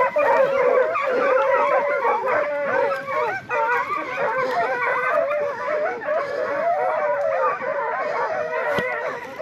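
A pack of bobcat hounds baying and howling together without a break, several voices overlapping: the hounds are treed, calling at a bobcat up a tree.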